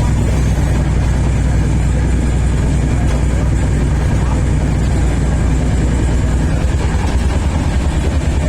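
Indian passenger train running: a steady low rumble that stays even throughout.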